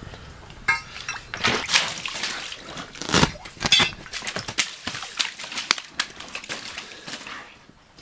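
Northern pike splashing up out of an ice-fishing hole and thrashing on the wet ice: a run of wet slaps and splashes, densest in the first half and thinning out near the end.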